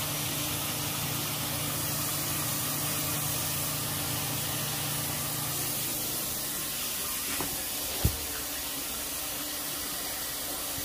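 Chicken legs sizzling steadily in hot grease in a cast iron skillet, with a single knock about eight seconds in.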